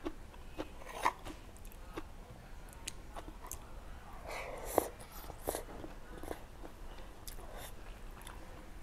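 Close-up eating sounds: a person biting and chewing a handful of rice with bamboo-shoot curry, with wet mouth smacks and small clicks. The sharpest sounds come about a second in and about five seconds in.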